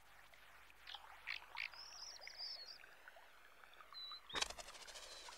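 Faint outdoor ambience with a few short, high bird chirps, then about four seconds in a single sharp clack with a brief ringing tail as the golf ball lands.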